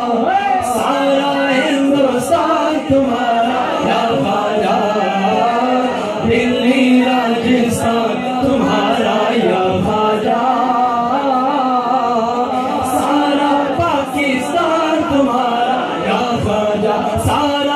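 A man singing an Urdu devotional qasida unaccompanied into a microphone over a hall PA, his voice rising and falling in long held melodic lines.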